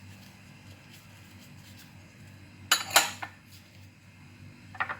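Kitchenware clinking: a quick cluster of sharp clinks about two and a half seconds in, and a lighter couple near the end, over a faint steady low hum.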